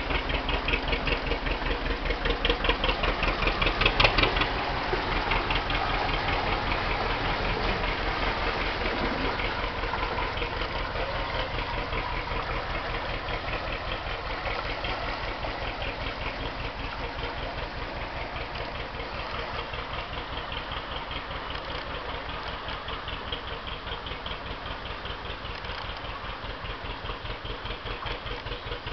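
Kelvin petrol/paraffin engine of a wooden narrowboat running with a slow, even beat, its water-cooled exhaust steaming, fading as the boat moves away. A single sharp knock about four seconds in.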